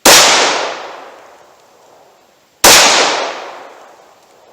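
Two shots from a Glock 41 MOS pistol firing .45 ACP handloads, about two and a half seconds apart, each ringing out in a long echo that fades over a second or more.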